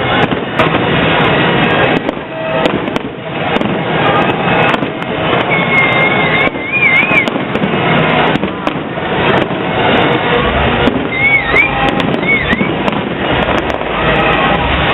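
Fireworks display going off: dense crackling and popping from bursting shells, with a wavering whistle about six seconds in and again around eleven seconds.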